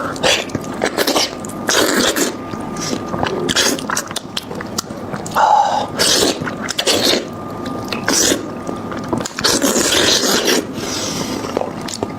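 Close-miked eating sounds of someone chewing beef trotter: wet smacking, sucking and chewing noises in an irregular run of short bursts and clicks.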